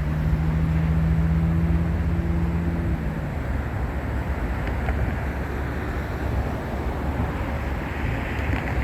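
Road traffic going by. A vehicle's engine hums steadily for about the first three seconds, then it fades into an even rumble of road noise.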